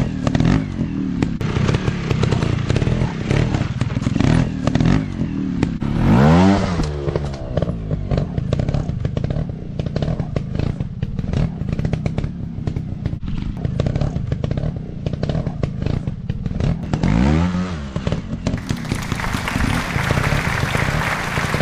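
Trail motorcycle engines running with uneven knocks and clatter, the engine note rising and falling twice, about six and seventeen seconds in. Near the end the sound changes to a steady hiss.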